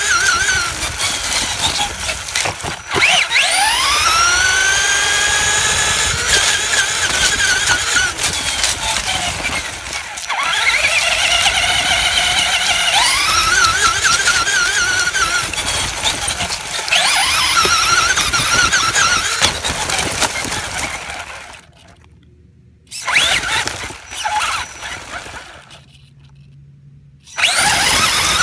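Radio-controlled car's motor whining high, its pitch sweeping up sharply each time the car speeds up and sinking back between bursts, several times over. The whine drops away twice near the end when the car stops.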